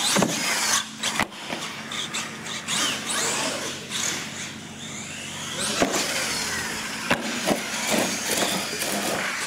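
R/C monster trucks driving on a concrete floor, their motors whining up and down in pitch as they speed up and slow down, with several sharp knocks as the trucks hit and land off the ramps.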